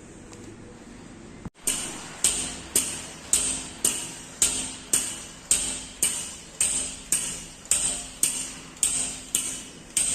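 A low hum, then, about a second and a half in, a steady run of hammer blows on metal, about two a second, each ringing briefly.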